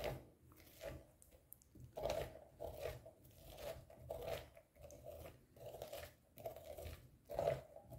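Metal spoon scraping seeds and stringy pulp out of a raw pumpkin half: a run of short, faint scrapes and crunches, about two a second.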